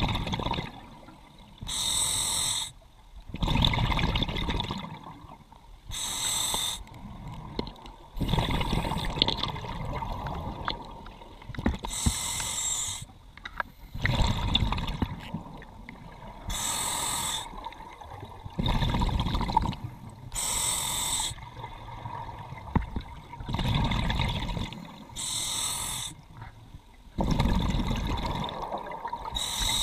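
Scuba diver breathing through a regulator underwater. A short hiss on each inhalation alternates with a longer bubbling rumble on each exhalation, about one breath every four seconds.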